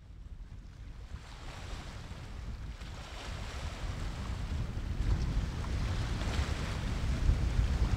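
Storm-force wind buffeting the microphone: a heavy, gusting low rumble over a rushing hiss, growing steadily louder as it fades in.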